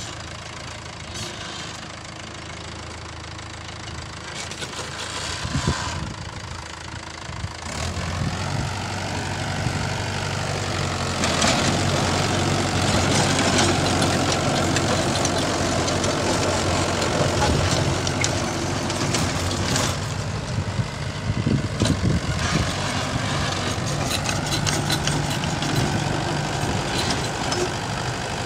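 Mahindra 415 diesel tractor engine running steadily, then working harder and louder from about eight seconds in as its rear rotavator tills the soil. The spinning rotavator blades add a churning, clattering noise of clods and earth being thrown.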